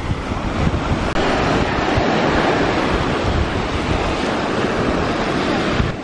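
Small ocean waves washing up and running over the sand at the water's edge, a steady rushing surf that swells about a second in. Wind buffets the microphone with a low rumble.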